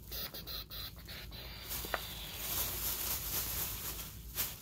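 Thin plastic shopping bag crinkling and rustling as a hand rummages inside it, with a brief squeak about two seconds in.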